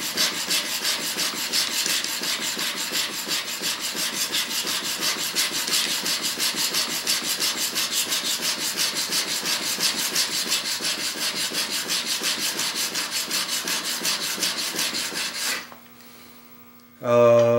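Steel chisel bevel, clamped in a honing jig, rubbed back and forth on an extra-coarse diamond sharpening plate: quick, regular scraping strokes, about four or five a second. It is coarse grinding to flatten a bevel that was freehand-ground on a belt sander. The strokes stop shortly before the end, and a brief humming tone follows.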